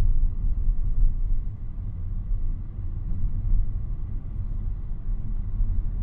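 Steady low rumble of road and tyre noise inside the cabin of a moving Renault Captur E-Tech Full Hybrid.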